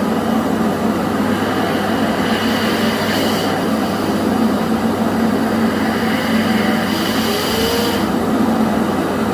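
Household vacuum cleaner running steadily, its hose drawing air backward through a water meter's inlet fitting to spin the meter in reverse. The hiss of the air grows stronger twice, briefly.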